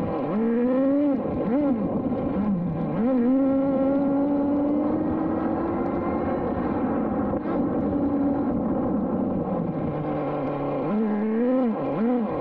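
Traxxas Jato 3.3's small two-stroke nitro engine revving under throttle, heard close up from an onboard camera. Quick blips near the start lead into a long, slowly rising run of revs; it eases off past the middle, then blips up and down again near the end.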